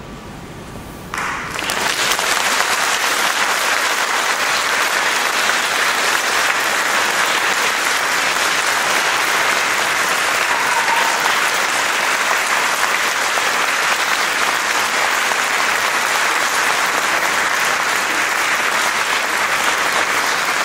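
Concert-hall audience applause that breaks out about a second in and then continues steadily.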